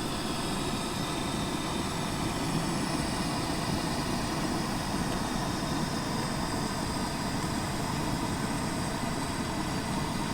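Onions and green chilies sizzling in a pot over a camp stove burner, a steady hiss with no pauses.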